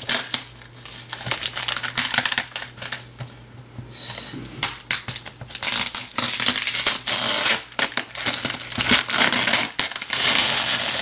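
Packing tape being picked at and peeled off a cardboard box, the tape crinkling and tearing in irregular rustling bursts, busier and louder in the second half.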